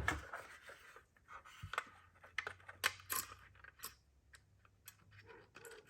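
Scattered small clicks, taps and rubs of handling a replacement fuse and the opened plastic case of a Fluke 87 multimeter while the new milliamp fuse is fitted into its holder.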